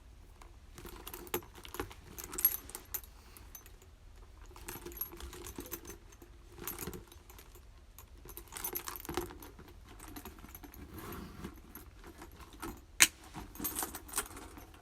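A small handbag being handled, its metal hardware clinking and jingling in irregular bursts among rustling, with a single sharp click near the end.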